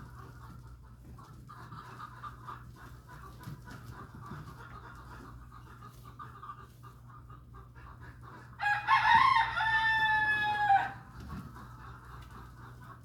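A loud, drawn-out animal call with several pitched parts, lasting about two seconds and starting about two-thirds of the way in, over faint repeated chattering and a steady low hum.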